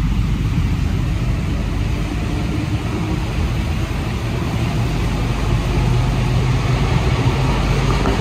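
Inside an Alstom NS-93 rubber-tyred metro car pulling out of a station: a steady low rumble of the running gear and traction, growing slightly louder as the train gathers speed.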